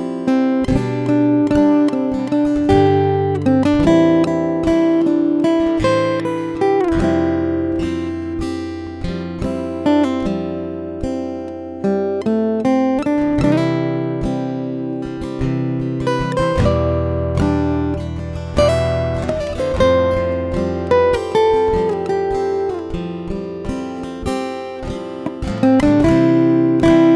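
Acoustic guitar music, plucked and strummed notes.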